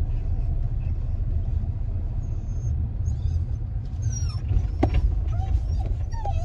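Steady low road and engine rumble inside a moving car's cabin. A sharp click comes about five seconds in, and a few faint short squeaks follow near the end.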